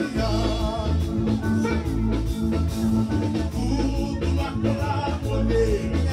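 Dance music with a heavy bass line, a steady drum beat and a singing voice.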